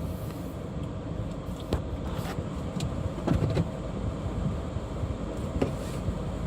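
Car driving, heard from inside: a steady low engine and road rumble with scattered clicks and knocks, a cluster of them about three seconds in.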